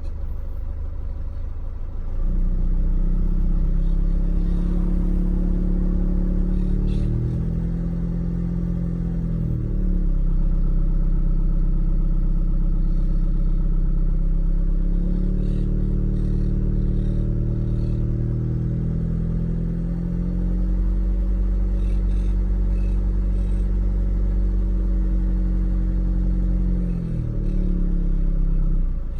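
2.2 HDi (4HT) diesel engine running at low revs with a low droning 'snore', which the owner says it makes up to about 1200 rpm. The revs step up and down several times: up about two seconds in, down and back up around the middle, and down again near the end.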